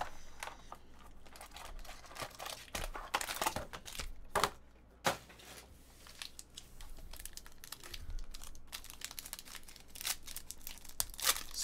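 Foil trading-card pack wrappers crinkling and rustling as the packs are lifted out of the box and handled, in irregular crackles. Near the end a pack is torn open.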